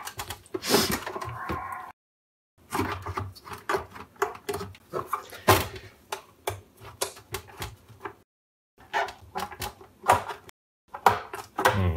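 Handling noise from a Roland TR-808 drum machine being worked apart on a bench: a string of sharp clicks and knocks from its casing and panels, with a scrape lasting about a second near the start.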